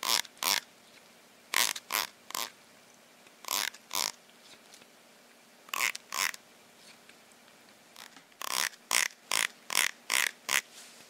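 Teeth of a blue plastic comb being strummed with a fingertip, giving short rasping zips. They come mostly in pairs, with a quicker run of about half a dozen near the end.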